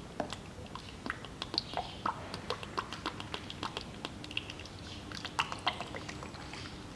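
Automatic transmission fluid glugging out of a four-litre plastic jug into a funnel that feeds through a hose into the transmission dipstick tube: a slow pour with irregular wet pops and clicks.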